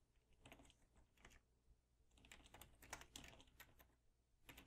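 Faint typing on a computer keyboard: a few scattered keystrokes, then a quicker run of them in the second half.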